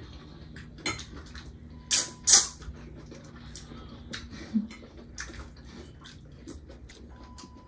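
Table sounds of a meal being eaten: scattered light clicks and taps of spoons and forks on plates and glass serving bowls, with two loud, short noisy bursts about two seconds in.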